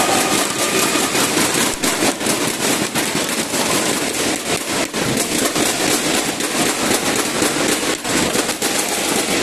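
Crowd applauding and cheering: a dense, rapid stream of sharp claps.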